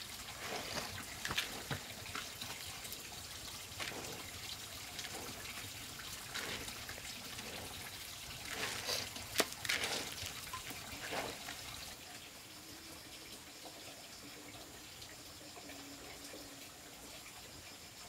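Water splashing and trickling, with irregular splashes through the first twelve seconds or so, then quieter and steadier.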